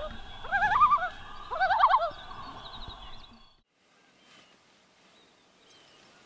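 Common loons calling: several overlapping quavering tremolo calls with rapidly wavering pitch and a few rising wails, cut off about three and a half seconds in, leaving faint background.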